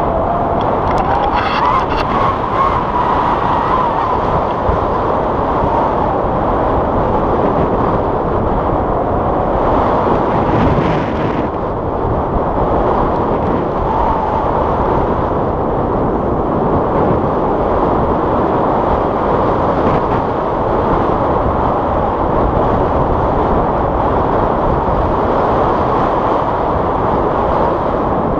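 Wind rushing over a GoPro's microphone in flight, a loud steady roar of noise.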